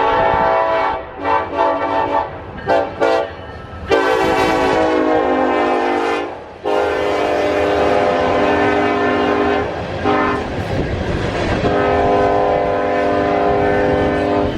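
A diesel locomotive's air horn on a passing coal train plays a long sequence. A held chord gives way to a quick run of short toots, then long held blasts, over the low rumble of the train rolling by.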